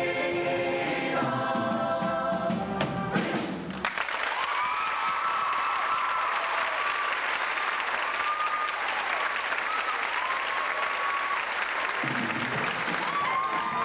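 Show choir singing a song to its close, the sung chord stopping about four seconds in. Audience applause with cheers and whoops follows for about eight seconds, and near the end the choir's music starts up again under the clapping.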